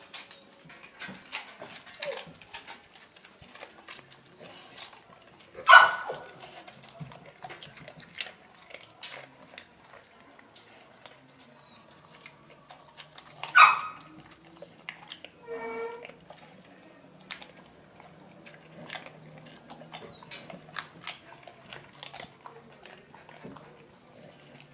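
American bully barking twice, about six seconds apart, with a short whine just after the second bark. Many small crackling clicks run throughout.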